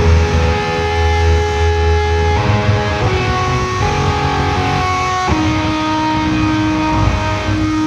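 Slow instrumental music from electric guitar and organ: held chords over a deep bass, the chord changing several times.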